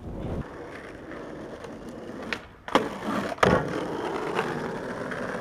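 Skateboard wheels rolling over rough asphalt, with two sharp clacks of the board less than a second apart near the middle before the rolling picks up again.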